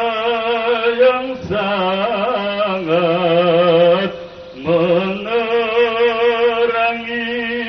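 A man chanting an Islamic devotional dzikir through a microphone and PA, in slow, long-held phrases with wavering melismatic ornaments. He sings three phrases, with short breaks about a second and a half in and just past four seconds.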